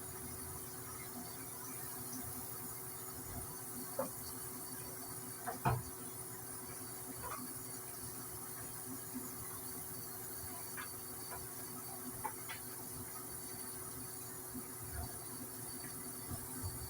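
A few light knocks and clicks, scattered a few seconds apart, over a steady background hiss.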